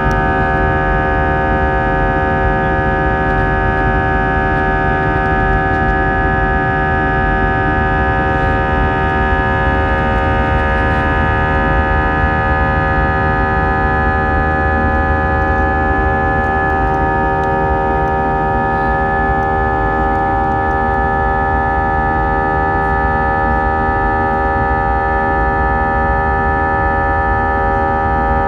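Airbus A320 jet engines heard from inside the passenger cabin: a steady whine of several high tones over a low rumble.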